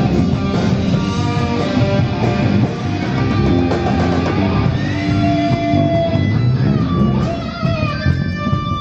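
Heavy rock band playing live through stage amplifiers: loud distorted electric guitars over bass and drums. Long held notes ring out over the second half.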